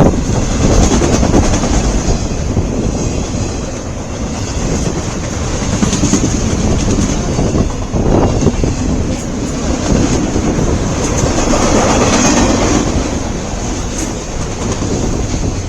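Long mixed freight train's cars rolling past at speed: a steady loud rumble of steel wheels on rail, with clickety-clack over the rail joints.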